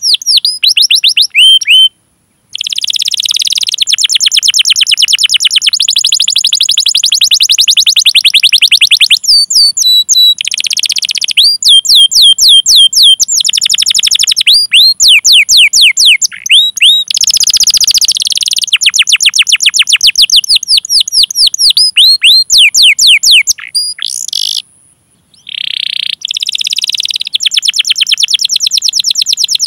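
Domestic canary singing a long song: fast rolling trills of rapidly repeated notes alternating with sweeping 'cuit cuit' chirp calls. It breaks off briefly about two seconds in and again about five seconds before the end.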